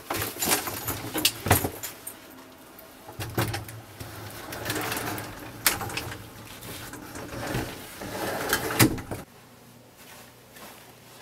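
Rustling and a run of knocks and clatters of someone pushing into a closet among clothes and belongings; it stops suddenly about nine seconds in.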